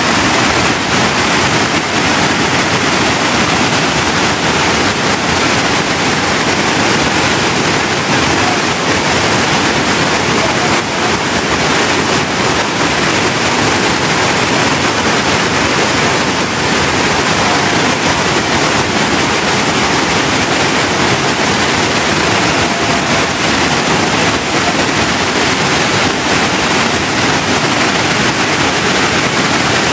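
Waterfall: water plunging over rock ledges into a churning pool, a loud, steady rushing noise.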